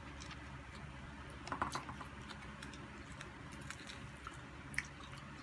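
Close-up chewing and mouth sounds of people eating, beginning with a bite into boiled okra, with scattered small wet clicks and a brief cluster of louder ones about a second and a half in.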